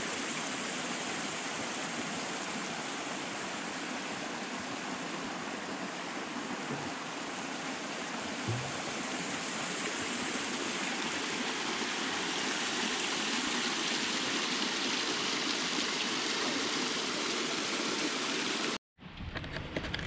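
Creek water running over rock ledges: a steady rushing. It stops abruptly near the end.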